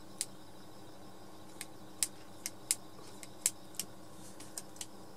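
Gerber Strata multi-plier, its spring-loaded pliers worked in the hand, giving about ten sharp, light metal clicks at irregular intervals.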